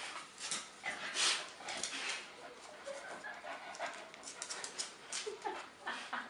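Dog panting in quick, repeated breaths, with a couple of short whimpers.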